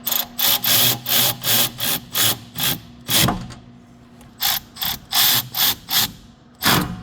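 Ratchet wrench worked in quick strokes, about three a second, running down a bolt, with a pause of about a second midway and a heavier stroke near the end.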